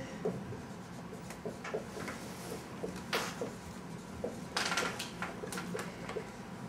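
Dry-erase marker writing on a whiteboard: a string of short, irregular strokes, with a longer stroke about two-thirds of the way through.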